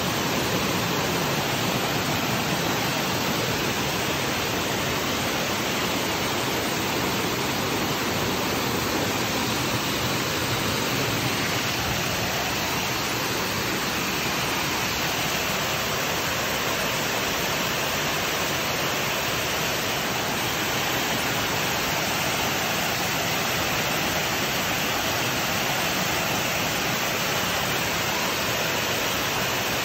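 Steady rush of a small tiered waterfall and stream water cascading over boulders, an even roar of falling water with no breaks.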